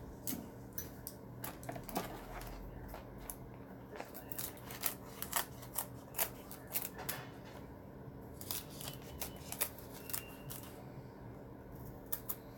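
Small hand scissors snipping again and again, with many quick, irregular cuts.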